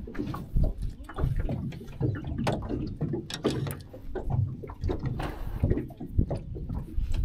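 Water lapping against the hull of a small aluminum fishing boat, with a steady low rumble and scattered small knocks and clicks as fishing line is handled.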